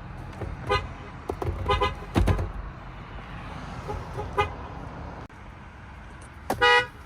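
Toyota car horns sounding in a series of short toots, with a louder, longer honk about six and a half seconds in.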